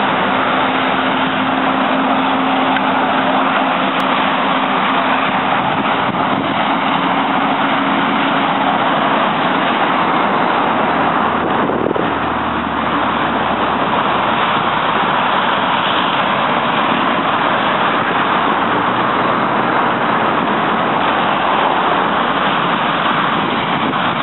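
Loud, steady rushing noise with a vehicle engine humming beneath it, the hum steady for the first nine seconds or so.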